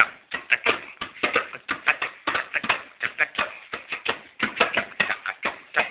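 Small djembe hand drum slapped rapidly and unevenly with a child's open hands, about five strikes a second.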